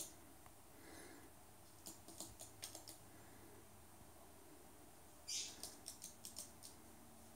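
Rainbow lorikeet's claws clicking faintly on a laminate floor as it hops about, in two quick runs of ticks. The second run opens with a short scratchy burst.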